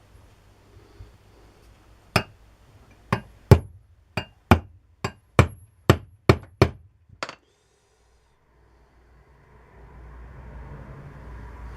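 A small hammer tapping about eleven times, sharp and uneven, driving a pin home into a part of a hand drill during its rebuild. Near the end a steady low rushing noise comes in.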